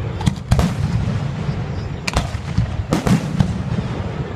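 Aerial firework shells bursting in a series of sharp bangs: a quick cluster near the start, another about two seconds in, and two more around three seconds in, over a steady low rumble.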